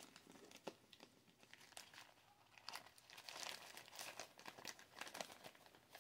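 Small clear plastic baggies crinkling faintly as they are handled, in scattered crackles that grow busier about halfway through.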